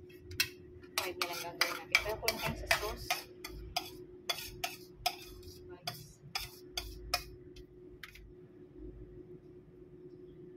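Metal table knife and spoon clinking and tapping against a ceramic plate and bread while spreading pizza sauce. There is a quick, uneven run of sharp clicks that thins out after about seven seconds.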